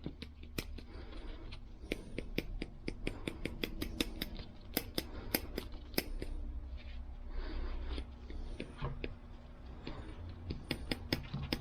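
Steel pliers being worked open and closed by hand, their jaws and pivot giving many sharp, irregular metal clicks as the joint loosens up.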